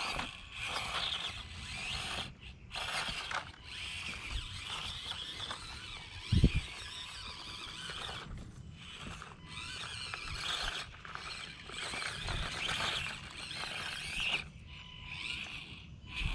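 Small electric motor and gearbox of an Axial SCX24 1/24-scale RC crawler whining in stop-start bursts as it creeps over rocks and leaf litter. A single dull thump about six seconds in.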